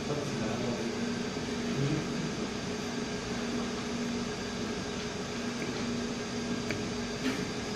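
Steady mechanical hum with a hiss, holding one low tone throughout.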